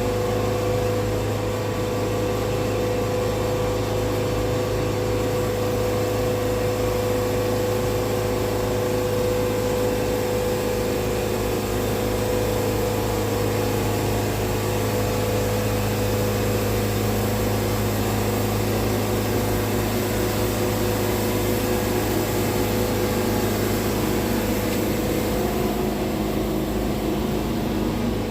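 Portable sawmill's engine running steadily with an even hum.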